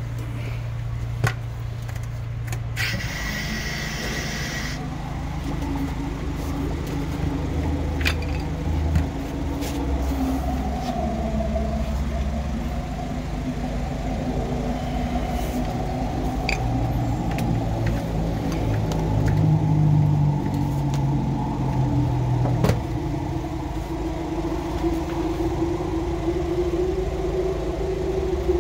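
Drain jetting machine's engine running steadily, its pitch rising and falling as it pumps water down the jetting hose into a blocked drain. A brief hiss about three seconds in.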